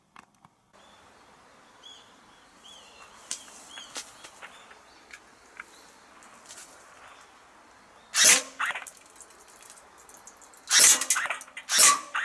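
Tokyo Marui Glock 18C electric airsoft pistol firing short, loud bursts of BBs at an aluminium drink can, one burst about two-thirds of the way in and several in quick succession near the end. Before that, a quiet stretch with faint bird chirps.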